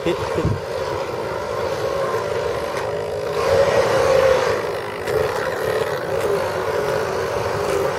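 Steady hum of small electric motors, a cluster of high tones that swells briefly about halfway through.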